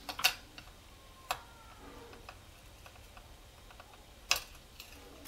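A few sharp, irregular clicks of small metal jewelry parts: a necklace chain and jump ring being handled with pliers to join the chain to the pendants.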